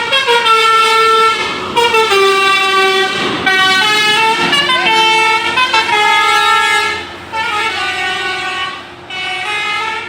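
Basuri 'telolet' musical air horn on a tour bus playing a tune: a string of loud held horn notes stepping from pitch to pitch, with short breaks between phrases.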